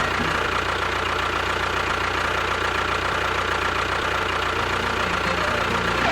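A small engine running steadily at idle, with a constant whine over it. A few low musical notes come in near the end.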